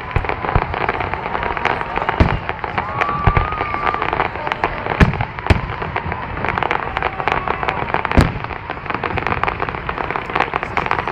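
Fireworks display: a continuous run of bangs and crackling, with the loudest bursts about five and eight seconds in. A faint wavering whistle-like tone runs under it for most of the first eight seconds.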